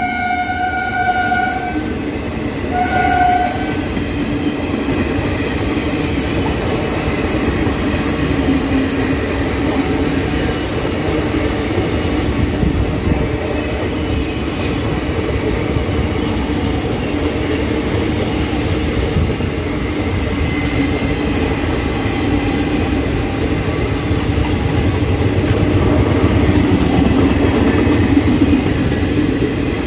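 A train horn sounds a long blast that stops about a second and a half in, then a short blast around three seconds. After that an Indian Railways express's ICF passenger coaches roll past at speed, a steady loud rumble of wheels on rail that swells slightly near the end.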